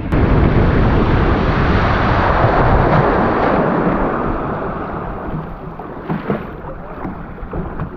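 Loud rush of splashing water with wind buffeting the microphone, starting abruptly and easing off after a few seconds.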